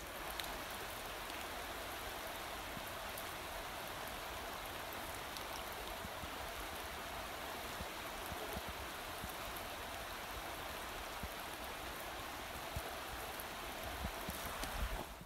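Shallow, fast-flowing river rushing steadily, with a few light knocks near the end.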